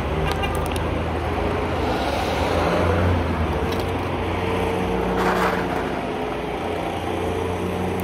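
Street traffic: a motor vehicle's engine running steadily, with a car passing about five seconds in.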